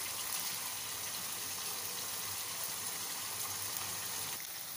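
Chicken pieces sizzling in hot oil in a nonstick wok: a steady frying hiss that gets slightly quieter near the end.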